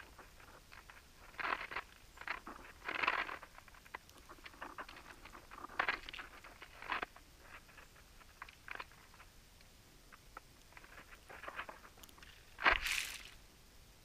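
Close-up irregular crunching and cracking as a male northern cardinal husks sunflower seeds and shuffles in the snow, in short clusters of clicks, with one louder, sharper knock near the end.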